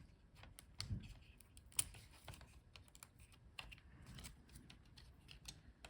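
Faint, scattered small clicks and light taps: a laptop's ribbon-cable connector and latch being unclipped and the cable handled by hand. Two of the clicks, about one and two seconds in, are a little louder.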